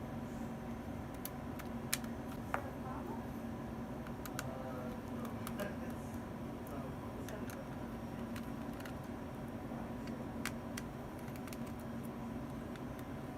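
Scattered light clicks and ticks of small tools and parts being handled on an opened laptop, with the two sharpest about two seconds in, over a steady low hum.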